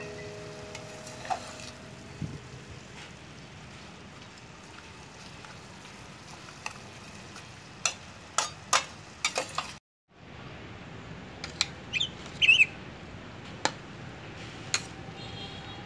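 Leafy greens stir-frying in a stainless steel pan: a steady sizzle, with a metal spatula clicking and scraping against the pan in a quick run about halfway through. After a short dropout, a few more metal clinks as the pan is tipped out onto a plate.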